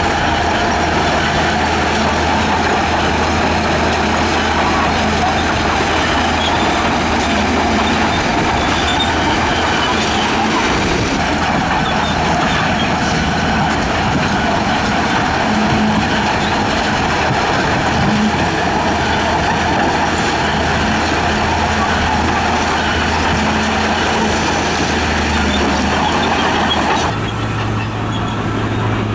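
Heavy road-construction machinery running: a diesel engine's steady drone with mechanical clatter. About two seconds before the end the sound changes abruptly to a different, higher-pitched engine drone with less hiss.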